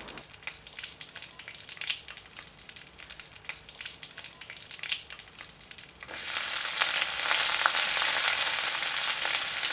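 Hot vegetable oil in a large metal curry pot crackling lightly around a frying green chili; about six seconds in, sliced onions, curry leaves and pandan leaves go into the oil and it breaks into a much louder, steady sizzle.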